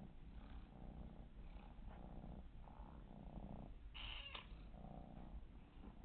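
Domestic cat purring softly in a rhythmic pulse of alternating breaths, with a short brighter scratchy noise about four seconds in.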